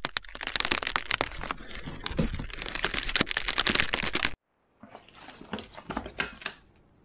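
Crackling, clicking intro sound effect that cuts off suddenly about four seconds in. After that come a few quieter clicks and rustles of small cardboard boxes being handled.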